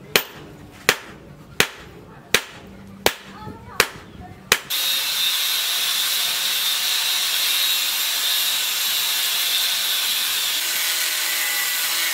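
Hand hammer striking red-hot steel on a stump-mounted anvil, seven sharp blows about three every two seconds. A little under five seconds in, the sound switches abruptly to an electric angle grinder grinding the steel blade, a steady loud hiss.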